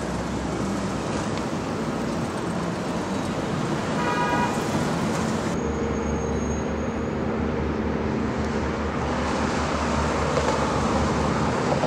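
Road traffic noise of passing cars, with a short horn toot about four seconds in. Partway through, the sound changes abruptly to steadier highway traffic with a low, constant hum.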